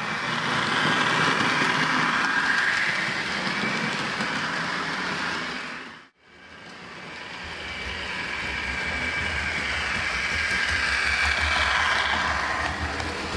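HO scale model trains running on the track: a steady rolling whir of small wheels and motors. It fades out and back in about six seconds in, and a low hum joins shortly after.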